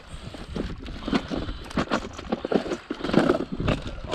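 Irregular clatter and knocking of a plastic tackle box being rummaged through, its trays of fishing lures rattling against one another.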